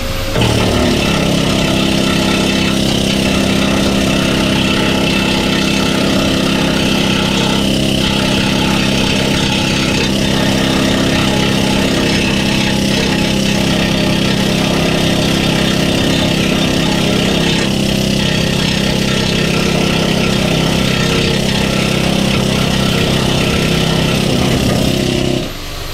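Angle grinder with a flap wheel running steadily against rusty steel plate. It starts about half a second in, runs at a near-constant pitch with slight dips, and stops shortly before the end.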